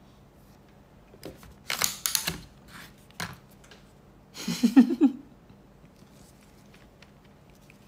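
Clicks and knocks of a plastic lightstick being picked up and handled right by a phone's microphone, in a cluster about two seconds in, then one more click and a short louder rustling burst about five seconds in.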